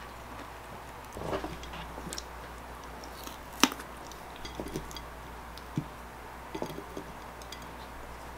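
Quiet eating sounds: a metal fork tapping and scraping on a ceramic plate and light chewing of melon, yogurt and granola, with one sharper clink about three and a half seconds in. A faint low hum runs underneath.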